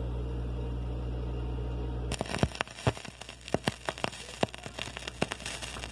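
Steady electrical hum from playback equipment. About two seconds in it gives way suddenly to dense crackling with many sharp pops, like the surface noise of a record playing.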